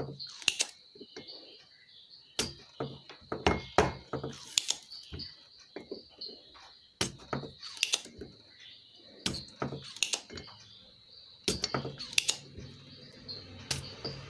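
Spring-loaded desoldering pump (solder sucker) snapping as its plunger is released and re-cocked, pulling solder off component joints on the amplifier board. There are about a dozen sharp clicks at irregular intervals.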